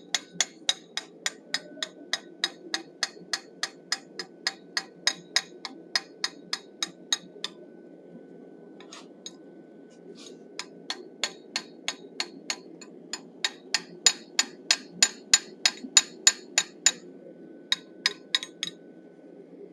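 Hand hammer striking a handled texturing tool set against a forged steel bison head in an anvil's hardy hole, texturing the fur with quick light blows about three a second. The blows come in two long runs with a pause of a few seconds between them, a few more near the end, and a faint high ring hangs between strikes.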